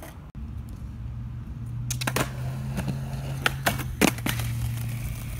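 Skateboard on concrete: a steady low hum of rolling, then a cluster of sharp clacks between about two and four seconds in as the board smacks the ground in a bailed trick.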